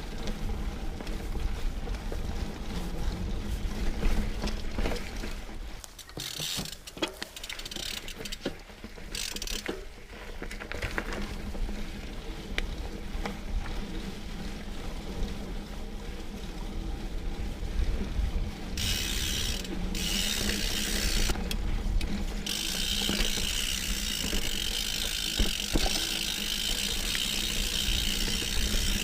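Diamondback Mason Trail plus mountain bike rolling over singletrack: a steady fast clicking from the rear hub ratchet while coasting, mixed with the chain and frame rattling over bumps. A hiss comes and goes from about six seconds in and holds over the last quarter.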